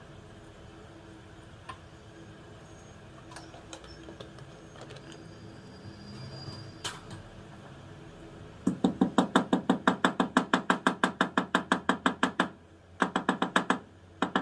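Pestle pounding green cardamom pods in a white mortar: a fast, even run of strikes, about seven a second, for nearly four seconds, then after a brief pause a shorter run and a last strike or two. Before the pounding, a few faint light clicks.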